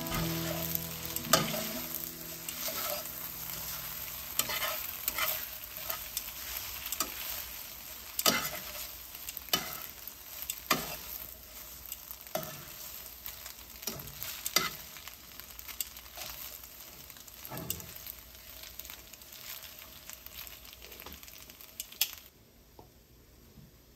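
Spaghetti sizzling in a stainless-steel skillet while it is tossed and stirred with metal tongs, the tongs clicking against the pan every second or two. The sizzle cuts off near the end.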